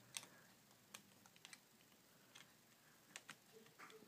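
Near silence with a few faint, irregular clicks and taps.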